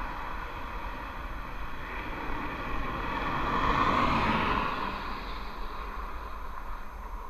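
A car passing close by on the road: its tyre and engine noise swells to a peak about four seconds in, then fades. Under it runs a steady wind rumble on the microphone of the moving bicycle.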